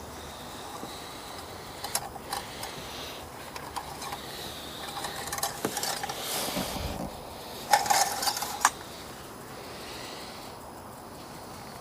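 Clicks and metallic clinks of parts and tools being handled while topping up engine oil and checking the dipstick, with a louder clatter lasting about a second near the end.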